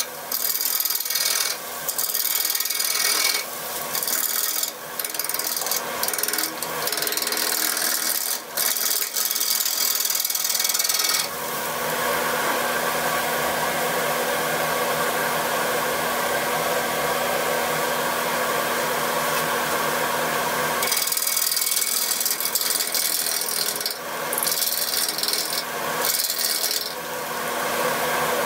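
Wood lathe turning a Siberian elm and red epoxy resin bowl blank, a bowl gouge cutting it in uneven hissing, scraping passes with short breaks, and a steady hum underneath. From about 11 s to about 21 s the cuts give way to an even, unbroken rushing noise, then the choppy cutting resumes.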